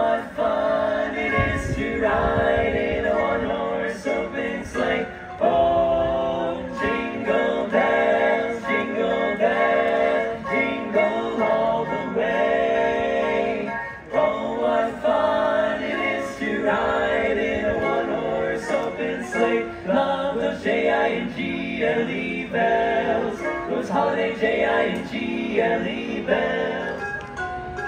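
Barbershop quartet singing in close four-part harmony, with hand-held metal tube chimes rung along in the performance.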